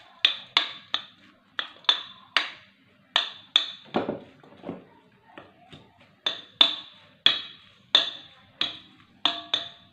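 Wooden spoon tossing sliced onions and chilies in a glass mixing bowl, knocking against the glass in quick irregular taps, each with a short ring, about two a second.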